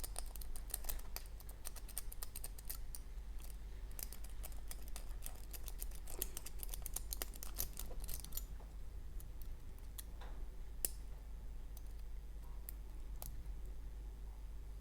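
A steel lock pick raking and clicking against the pins of a Kik lock cylinder fitted with T-pins and serrated pins. It makes a dense run of quick clicks for about eight seconds, then only a few scattered clicks.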